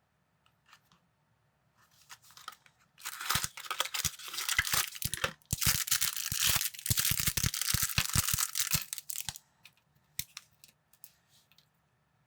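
Plastic packaging, such as a bag of building pieces, being torn open and crinkled, with small plastic pieces clicking. It starts about three seconds in, breaks off briefly, and lasts about six seconds.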